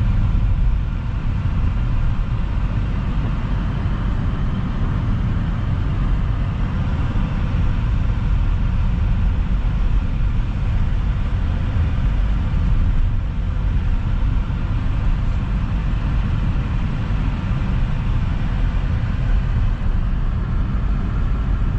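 Steady engine and tyre noise heard from inside a moving car's cabin, a low rumble with no sudden changes.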